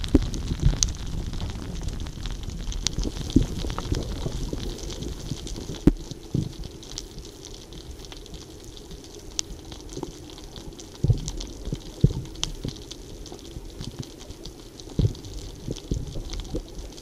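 Underwater sound picked up by a camera in a waterproof housing on a speargun: a steady, muffled low rumble with scattered sharp clicks and knocks.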